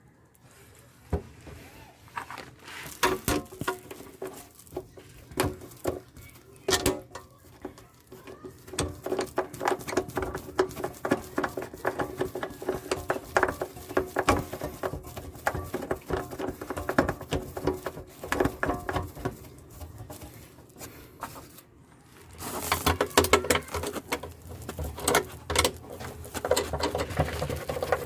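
Hands refitting a cover in a small van's engine compartment: irregular clicks, taps and light knocks, with a louder, busier clatter in the last few seconds.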